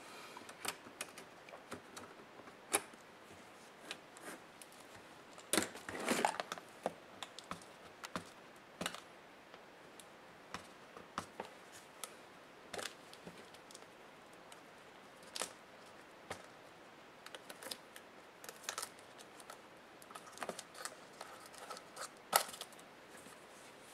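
Laptop disassembly handling sounds: irregular small clicks and taps of plastic and metal parts and tools, with a short scraping rustle about six seconds in and a sharper click near the end.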